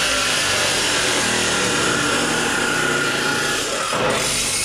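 A power grinder running under load: harsh, steady grinding noise with a faint high whine, used to shape a wider side-stand foot for the motorcycle. The sound changes abruptly about four seconds in.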